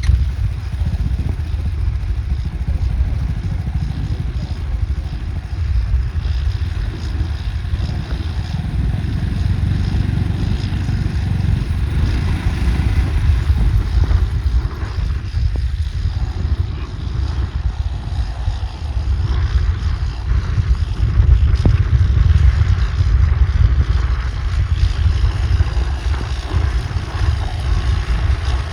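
Tractor engine running under load, a continuous low rumble.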